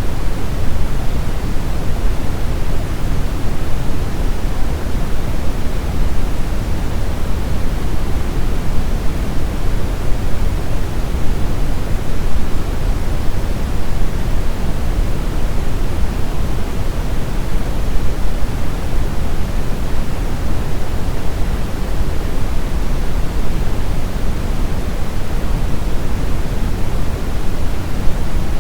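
Brown noise: a steady, even rushing hiss weighted heavily toward the deep low end, with no changes or events.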